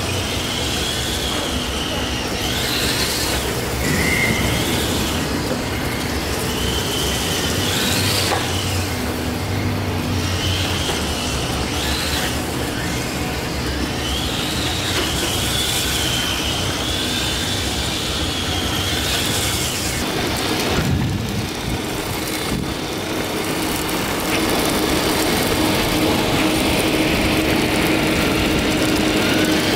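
Electric motor of a 1:10 HSP Flying Fish RC drift car whining, its pitch rising and falling again and again as the throttle is worked through drifts.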